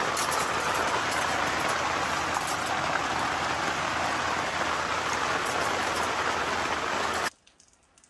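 Heavy rain falling steadily on the tarp and tent overhead, an even hiss with scattered drop ticks. It cuts off suddenly about seven seconds in.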